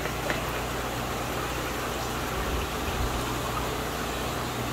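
Steady background noise of a fish room: a constant low machine hum under the hiss of air bubbling through aerated vats and tanks.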